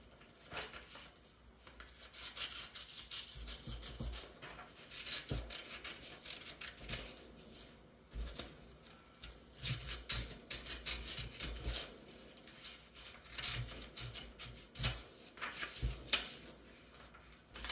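Scissors snipping through black construction paper: a long run of irregular, sharp snips, with the paper rustling as it is turned.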